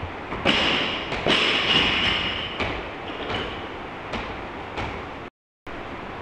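Hands clapping and rubbing chalk at a chalk bowl: a series of sharp claps and pats with the rasp of palms rubbing together, loudest in the first couple of seconds. The sound cuts out completely for a moment near the end.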